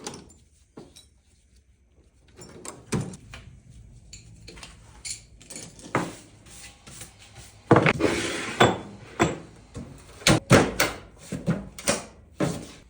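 Metal tools clinking and knocking as they are put away, with toolbox drawers sliding open and shut, including a longer sliding scrape about eight seconds in.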